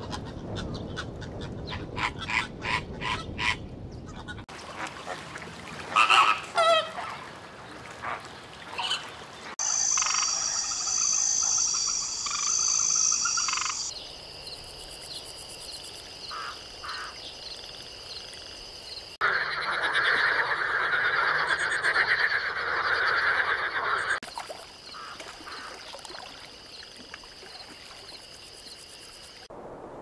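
Spliced nature-sound clips that change abruptly every few seconds. Frogs croak in chorus by water, with honking waterfowl calls and steady high-pitched trills mixed in.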